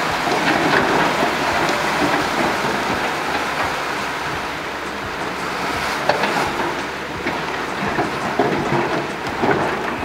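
Dump truck running with its bed raised, tipping out a load of earth and rubble: a steady noise with scattered knocks of falling debris, a few sharper ones in the second half.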